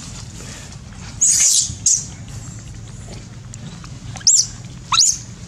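Macaques screeching: a harsh, high screech about a second in, a short one just after, then two shrill squeals that sweep up in pitch near the end.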